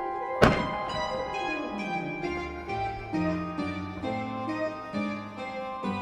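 Music of plucked strings playing note by note, with a deeper bass line entering about two seconds in. About half a second in comes a single sharp thump, the launch report of a firework shell.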